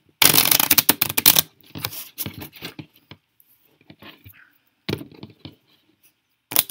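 A deck of playing cards being riffle-shuffled: a fast run of card flicks, then scattered clicks and scrapes as the halves are pushed together and squared, and a second riffle starts near the end.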